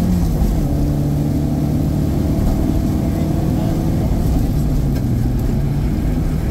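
Opel Manta rally car's engine heard from inside the cockpit, pulling at fairly steady revs along the stage.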